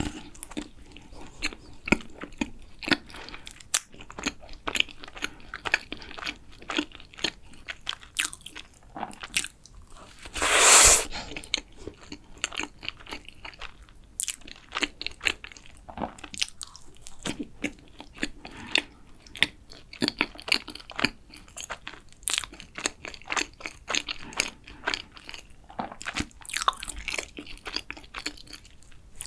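Close-miked eating of a chocolate cream castella roll cake: many small bites and wet chewing clicks. About ten seconds in comes a louder noise lasting about a second, the loudest sound here.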